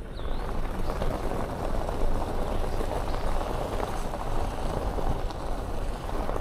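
Car tyres rolling slowly over a freshly laid gravel driveway, a steady crunching and crackling of stones over low road rumble.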